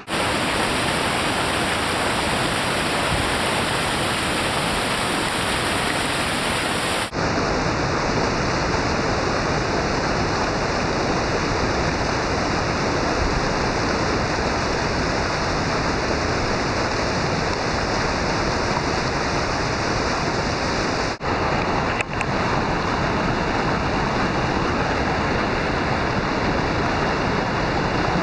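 Loud, steady rush of water pouring over a river waterfall, with abrupt breaks about seven seconds in and again around twenty-one seconds.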